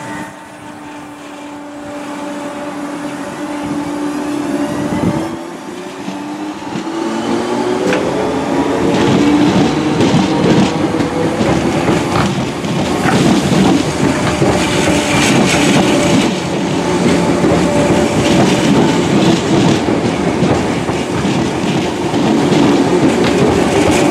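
Merseyrail Class 508 electric multiple unit running into the station and past close by. It grows louder over the first ten seconds, with a steady hum, a whine that rises in pitch, and wheel clicks as the cars pass.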